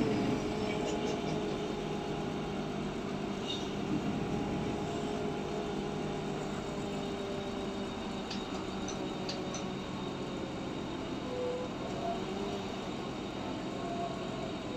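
Cabin sound of a MAN Lion's City CNG city bus under way: steady hum of the gas engine and drivetrain with a held tone, and a few faint light clicks or rattles about 8 to 9 seconds in.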